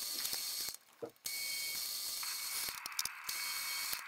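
Drill press running as its bit bores mortise holes in oak, a steady high-pitched whir. It cuts off abruptly about three quarters of a second in and starts again half a second later. A lower, rougher cutting noise joins about halfway through.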